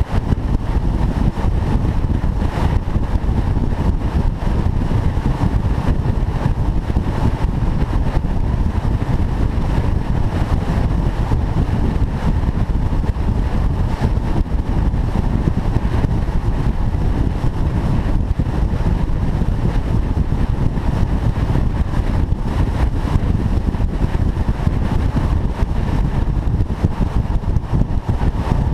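A car driving at a steady pace: a low, steady rumble of engine, tyre and wind noise, with no clear revving up or down.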